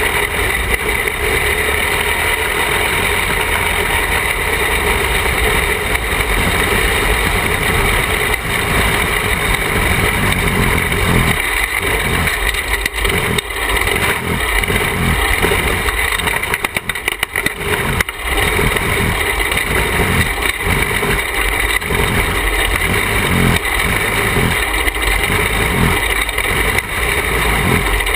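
Caged dirt kart's engine running, picked up on board, steady for the first part. From about eleven seconds in, the engine sound comes and goes in repeated short pulses as the kart crosses rough ground and heads onto the grass.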